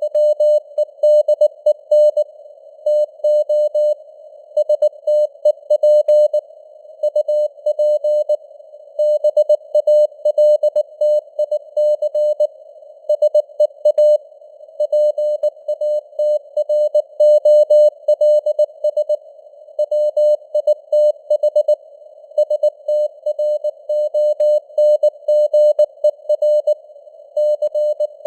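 Computer-generated Morse code (CW) at 19 words per minute: a single mid-pitched tone keyed on and off in dots and dashes, spelling out text. It sits in a narrow band of simulated radio receiver hiss, and the signal strength rises and falls a little, imitating fading (QSB).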